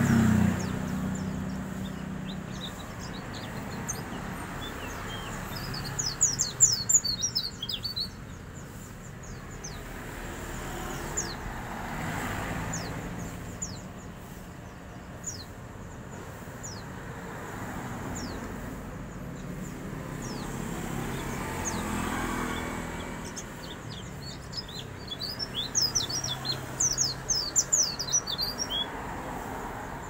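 Small green caged songbird twittering: two bursts of rapid high chirps, about six seconds in and again near the end, with scattered single chirps between.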